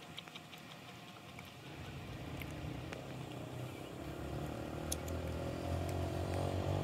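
A motor vehicle's engine approaching, starting to be heard about two seconds in and growing steadily louder, with a few faint small clicks over it.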